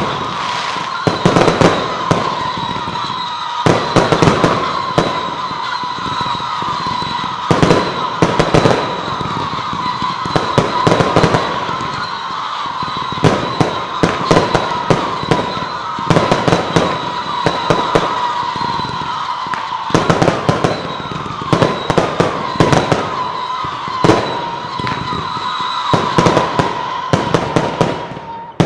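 Fireworks display: aerial shells bursting in quick clusters of sharp bangs over a continuous hiss. A steady high tone runs beneath them and cuts out shortly before the end.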